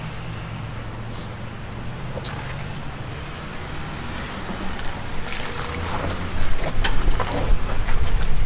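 Off-road vehicle engine running steadily at low revs, getting louder about six seconds in, with scattered knocks and clicks over it.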